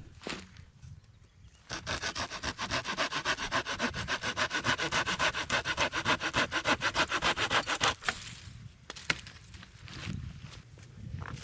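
Hand saw cutting through wood with rapid, even strokes for about six seconds, then stopping, followed by a few lighter knocks.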